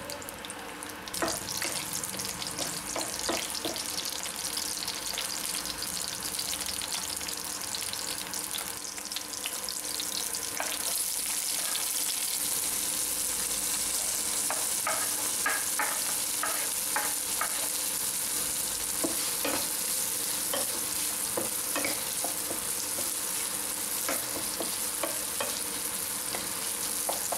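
Green chillies and chopped onions sizzling in hot oil in a nonstick pan, a steady hiss that grows stronger partway through. Scattered clicks and scrapes come from the knife and spatula as the onions are pushed into the pan and stirred.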